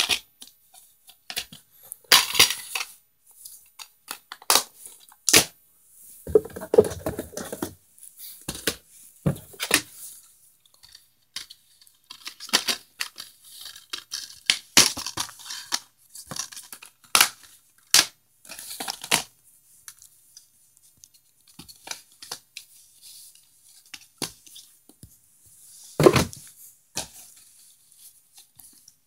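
Plastic DVD cases being handled: picked up, slid against one another and set down, giving a string of irregular clicks, scrapes and rustles, with one louder knock near the end.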